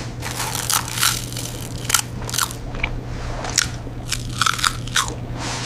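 Popcorn being eaten: irregular crisp crunches, several a second, with a hand rummaging in a paper popcorn box, over a steady low hum. The audio is AI-generated along with the Veo video clip.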